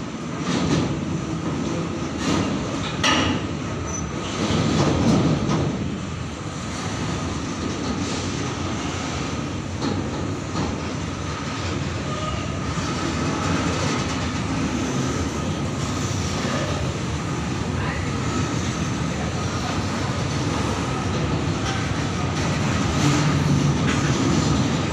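Freight train of steel covered wagons (BOXNHL) rolling past close by: a continuous rumble of wheels on rail, with knocks of wheels over rail joints in the first several seconds and a faint steady high-pitched ring.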